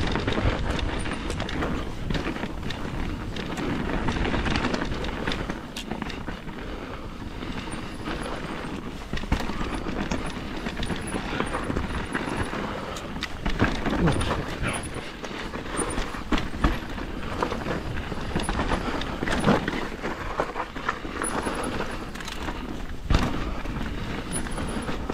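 Mountain bike rolling down a rough dirt trail: a steady rumble of tyres over the ground, with frequent rattles and knocks from the bike as it hits bumps, the sharpest knock a little before the end.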